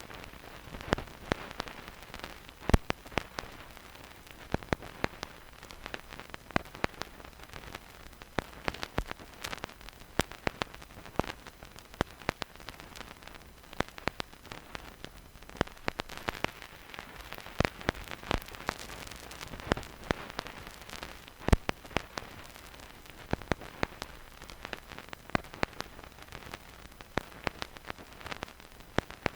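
Vinyl record surface noise with no music: irregular crackles and pops from the stylus in the groove over a steady hiss.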